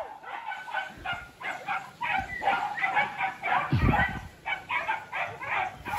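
Several hunting dogs barking and yelping at once in a rapid, overlapping run of short calls, about three or four a second, with a dull thump about four seconds in.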